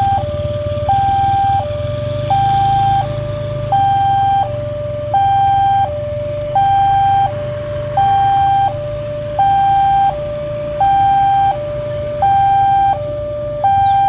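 Railway level-crossing warning alarm sounding: an electronic two-tone signal that alternates steadily between a higher and a lower tone, each held about two-thirds of a second, warning that a train is approaching. A low steady rumble runs underneath.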